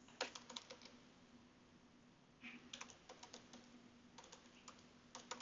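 Faint typing on a computer keyboard: a quick run of keystrokes just after the start, then more irregular runs from about two and a half seconds in.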